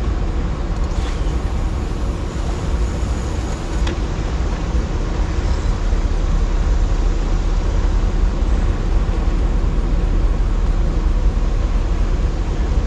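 Steady low rumble with a hiss spread over it, the roar of water running below a dam, with one faint click about four seconds in.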